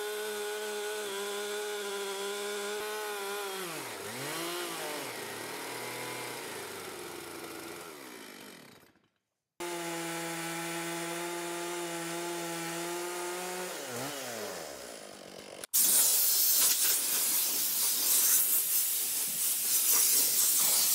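Stihl chainsaw on a chainsaw mill running at high revs, ripping a slab through a Douglas fir burl. Its pitch sags and recovers about four seconds in, breaks off briefly near nine seconds, and winds down about fourteen seconds in. After that a loud, steady hiss takes over.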